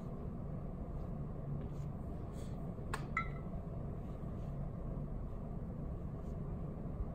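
Steady low room hum, with one short clink that rings briefly about three seconds in.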